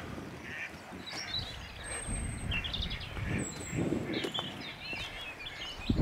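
Several birds calling and chirping in short, high calls, over swells of low rumbling noise. A sharp click at the very end.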